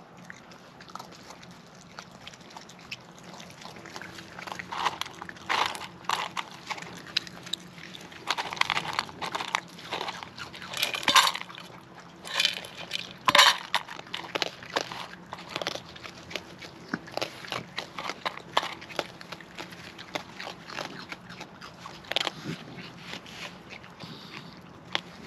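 Raccoons chewing and crunching food close by: irregular sharp crunches and clicks, with the loudest bites about halfway through.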